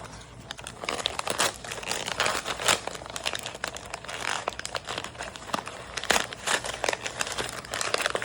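Toy packaging being opened: its wrapping crinkles and rustles in a dense run of irregular crackles, with brief tearing.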